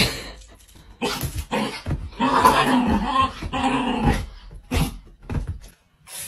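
A dog vocalizing: a few short pitched sounds, then a longer wavering call lasting about two seconds midway, then more short sounds.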